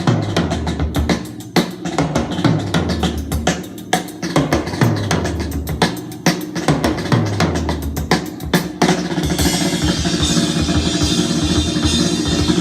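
Recorded music with a drum kit and deep bass playing through Elac Debut B6.2 bookshelf speakers driven by a Cambridge Audio CXA60 amplifier, picked up by a phone in the room. About nine seconds in, the music gets fuller and denser.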